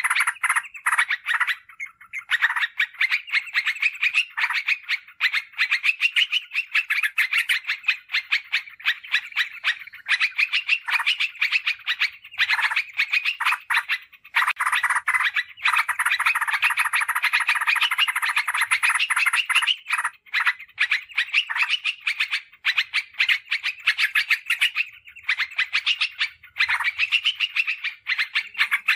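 Yellow-vented bulbul (trucukan) calling in a dense, fast chatter of repeated notes with brief pauses. It is a lure recording meant to draw wild bulbuls in and set caged ones calling.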